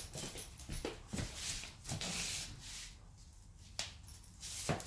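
A small Yorkie-Pomeranian dog and a person in flip-flops scuffling about on a hardwood floor in play: scattered light taps and knocks, with a brief rustle about two seconds in.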